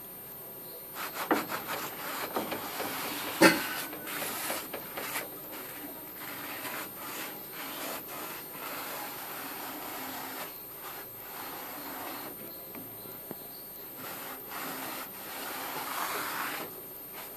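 Green scouring pad scrubbing the rusty iron cooking plate of an electric hot plate: rough, irregular rubbing strokes starting about a second in, with one sharp knock about three and a half seconds in.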